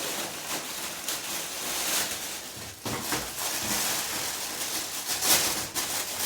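Packaging rustling and crinkling as the washing machine's hoses are unwrapped by hand, irregular throughout, with a louder crackle about five seconds in.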